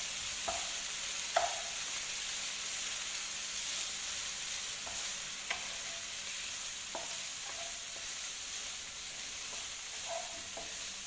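Chicken pieces sizzling in oil in a frying pan, with a few scattered clinks of a utensil against the pan as they are stirred.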